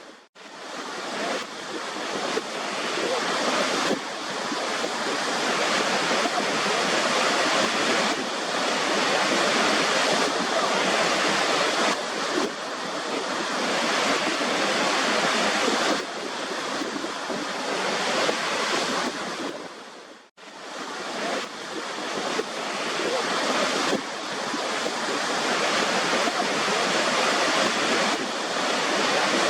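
Waterfall water rushing in a steady, dense hiss. The sound cuts out briefly right at the start and again about twenty seconds in, then swells back up over a few seconds each time.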